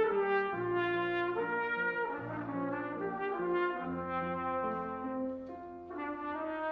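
Solo trumpet playing a lyrical line of held notes that step from pitch to pitch, accompanied by grand piano with sustained bass notes. Near the end the trumpet breaks off briefly and comes back in on a new phrase.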